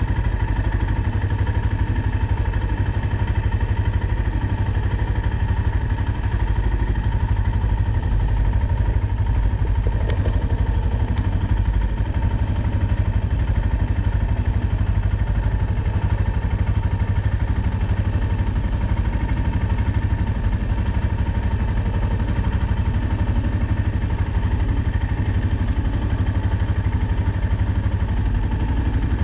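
Quad bike (ATV) engine running steadily at an even pitch, with a heavy low rumble underneath and no revving.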